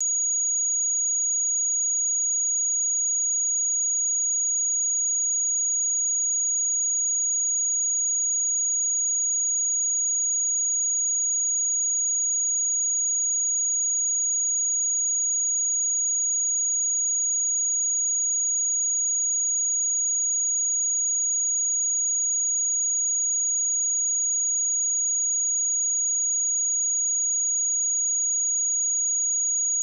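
Pure 6736 Hz sine-wave test tone: a single steady high-pitched note at constant level.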